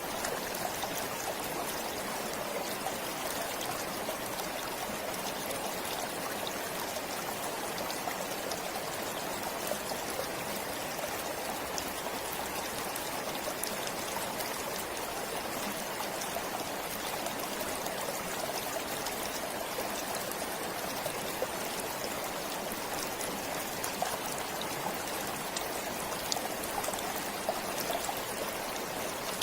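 A forest stream flowing steadily: an even rush of running water with faint little splashes and drips scattered through it.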